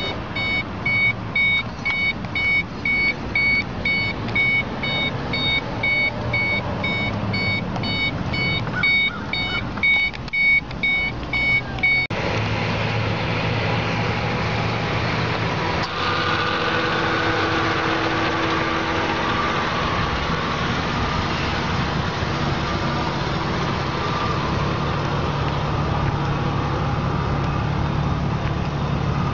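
A 2006 Ford Mustang's warning chime beeps at an even, repeating pace while the driver's door stands open. About twelve seconds in this gives way to a steady low running sound, the car's engine idling.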